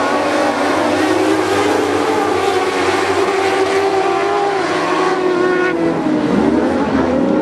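A pack of dwarf race cars racing, their motorcycle engines running hard together. Several engine notes overlap, their pitch wavering up and down as the cars go through the turn.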